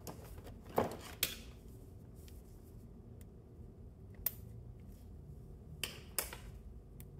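Scattered small, sharp clicks and taps: a CR2032 coin-cell battery being fitted into a red dot sight's battery compartment, metal and plastic parts knocking together.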